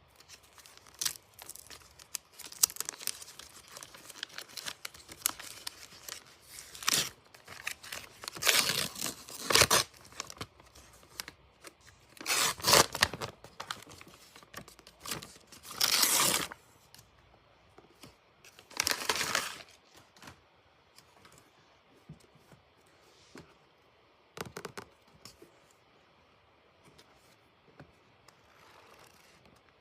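Book packaging being torn open and crinkled by hand: a string of irregular tearing and rustling bursts, the loudest in the middle, thinning out towards the end.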